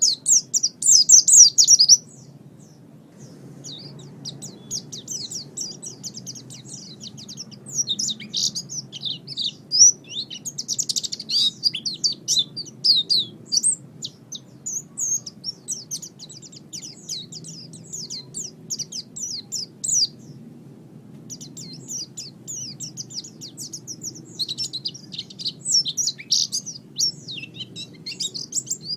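Pleci (white-eye) singing a long, rapid twittering song of high chirps. It breaks off briefly about two seconds in and again about twenty seconds in.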